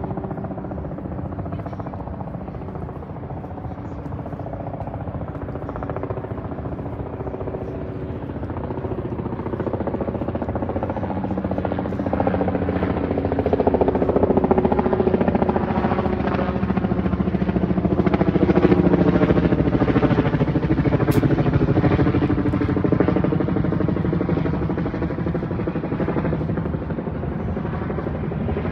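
An aircraft drones overhead, a steady engine hum that grows louder to a peak about midway and then fades as it passes.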